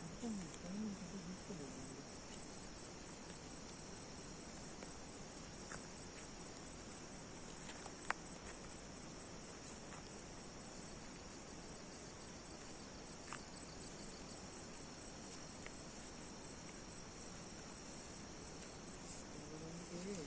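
Night insects chirping in a steady, high, continuous drone, with a single sharp click about eight seconds in.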